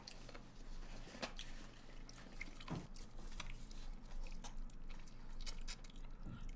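Close-miked eating sounds of braised soy-sauce chicken being bitten and chewed, with scattered short clicks and mouth sounds.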